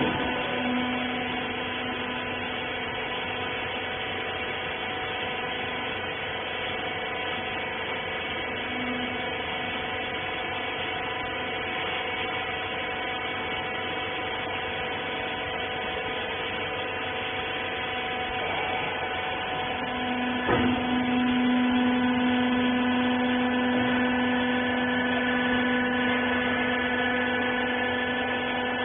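Hydraulic power unit of a used-clothes baler running with a steady hum. A knock comes about twenty seconds in, after which the low hum grows louder.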